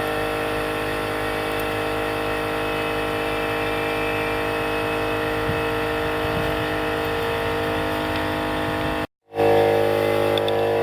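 Electric air compressor running steadily while inflating a truck tire, with a drone of even tones. It drops out for a moment about nine seconds in and then carries on.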